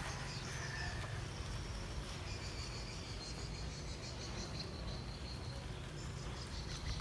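Insects chirring steadily in a high, even buzz, over a constant low rumble.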